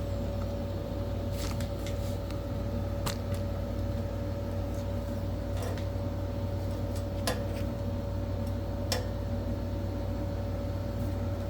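A steady machine hum with one constant tone. A few light clicks and knocks of metal being moved and adjusted sound over it.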